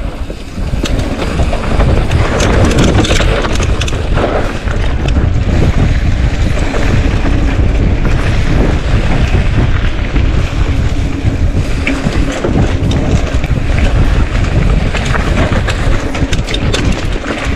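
Wind buffeting the microphone with a constant low rumble, over a stream of rattling clicks and knocks from a mountain bike riding a rough dirt trail.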